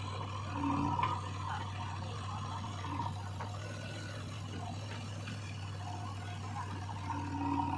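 Diesel engine running steadily under a rushing noise, with a few light knocks, from a backhoe loader working mud into tractor trolleys.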